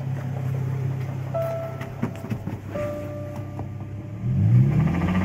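Infiniti G35's VQ35DE V6 idling, then revved once about four seconds in, the pitch rising and the sound getting louder. The engine has a knock that worsens on the throttle, from a spun bearing. A couple of brief steady tones sound in the first half.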